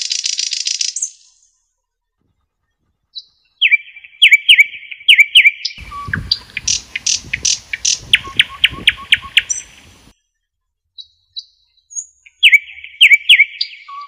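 Nightingale singing: a buzzy trill, then phrases of quickly repeated sharp whistled notes, with pauses of a second or two between phrases.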